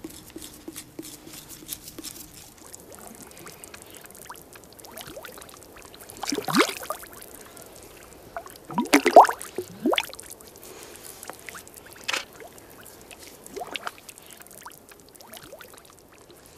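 Water being poured and splashing in several separate pours, the loudest about six and nine seconds in, with smaller splashes after.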